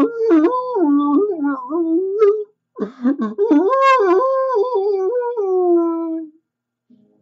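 A person's voice imitating a dog's mournful howling and whimpering: two long wavering wails, the second sinking in pitch and trailing off.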